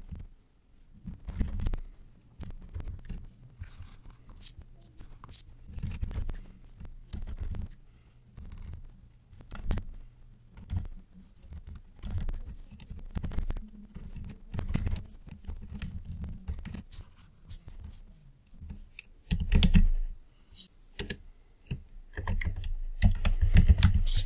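Typing on a computer keyboard: irregular runs of key clicks with short pauses, and a denser, louder flurry of keystrokes near the end.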